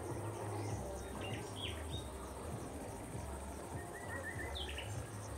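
Outdoor evening ambience: birds giving a few short, falling chirps and a quick run of chirps, over a steady high-pitched insect trill. A low rumble runs underneath.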